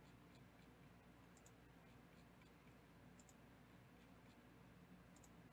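Faint computer mouse clicks, three in all about two seconds apart, each a quick pair of clicks, over a low steady hum.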